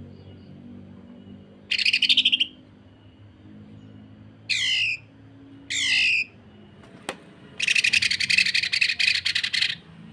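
Cucak ijo (green leafbird) giving harsh, rough calls: a short fast buzzy burst about two seconds in, two short falling notes around the middle, then a rapid stuttering rattle about two seconds long near the end, the 'sewing machine' rough call.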